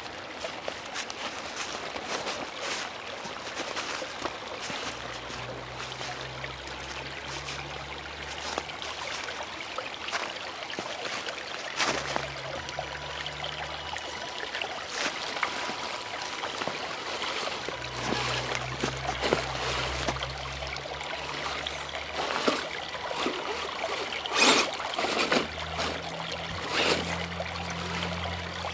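Steady trickle of running water, with the low drone of the RC crawler's electric motor coming and going four times and scattered sharp clicks and snaps, the loudest about two-thirds of the way in.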